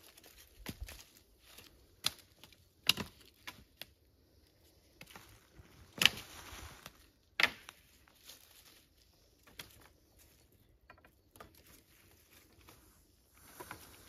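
Dry sticks and twigs cracking and clattering as they are broken and gathered, over rustling dry fallen leaves. A handful of sharp cracks, the loudest about six seconds in and again a second and a half later.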